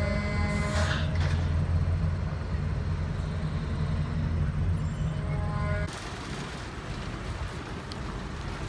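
Hoist machinery of the Big Chute marine railway running with a steady, deep mechanical drone as the boat carriage is lowered along the track, then cutting off suddenly about six seconds in.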